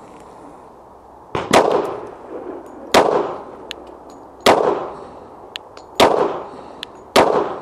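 Glock 22 Gen 3 pistol firing .40 S&W rounds: five shots about a second and a half apart, each followed by a short echo.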